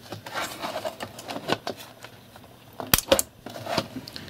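Handling noise: scattered light clicks and rustles, with a sharper double click about three seconds in.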